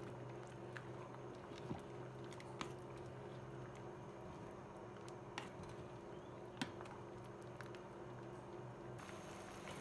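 Wooden spatula stirring soup in a metal pot, with a few light, sharp clicks as it knocks the pot's side, over a faint steady hum.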